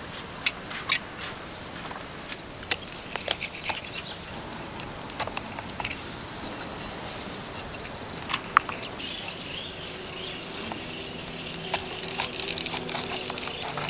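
Scattered sharp clicks and taps, a few at a time, with high chirping in the background. Soft music fades in near the end.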